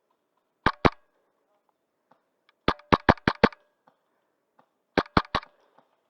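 Wolverine MTW HPA airsoft rifle firing in short strings of sharp, snappy shots: two, then a quick run of about six, then about four.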